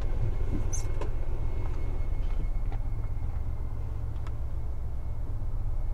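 Low, steady rumble of a Ford Fusion sedan's engine idling just after it pulls up, with a few light clicks as its driver's door is opened.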